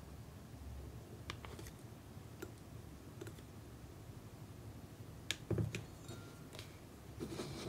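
Light clicks and taps of hard plastic as small plastic toy-kitchen candy containers are handled, with a louder knock about five and a half seconds in and a quick run of clicks near the end.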